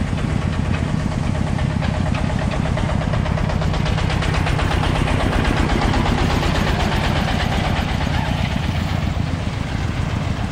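Engine of an on-site concrete mixer running steadily with a fast, even chug. A rattling noise swells in the middle and eases off about eight seconds in.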